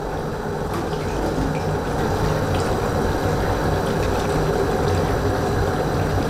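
Water running from a kitchen tap into a blender jug to rinse out ground peanuts, with the peanut-and-water mixture poured into the pot of soup. It is a steady rush of running and pouring water that grows a little louder about two seconds in.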